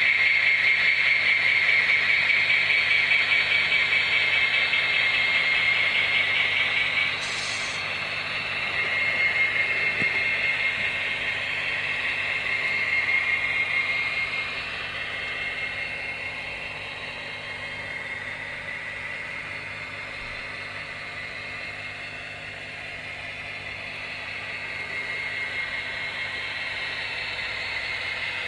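Model train running on layout track: a Union Pacific model diesel and its freight cars make a steady rolling rattle and motor whine. The sound drops in level about seven seconds in and again about halfway through.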